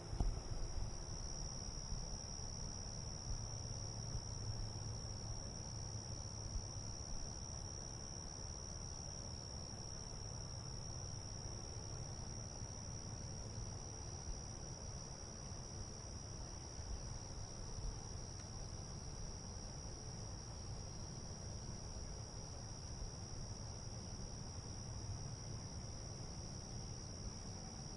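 Insects chirring in a steady, unbroken high trill, over a low rumble.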